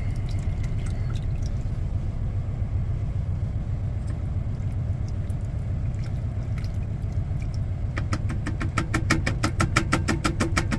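Semi-truck's diesel engine idling with a steady low rumble. About eight seconds in, a whisk starts clicking rapidly against the Instant Pot's steel inner pot, about seven strokes a second.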